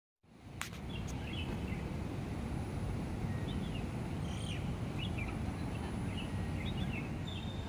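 Birds chirping now and then over a steady low rumble of city traffic, fading in just after the start.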